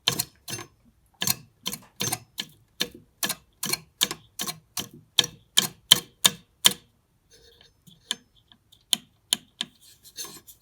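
Small computer power-supply cooling fan being flicked round by hand, a sharp click at each push, about two or three a second, thinning to a few fainter clicks after about seven seconds. Turning the fan works freshly injected oil into its sleeve bearing.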